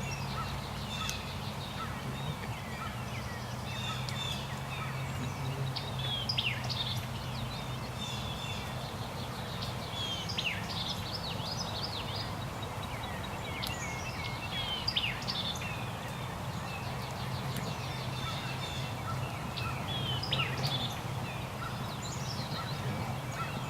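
Songbirds chirping and calling, many short high chirps scattered throughout, over a steady low hum.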